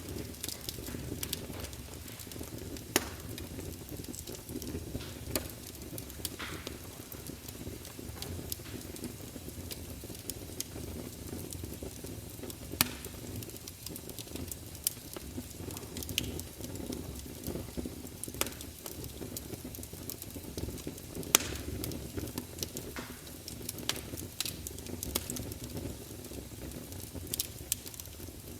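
Campfire burning: a steady low rumble of flames with scattered sharp crackles and pops of burning wood, a few of them louder, about 3, 13 and 21 seconds in.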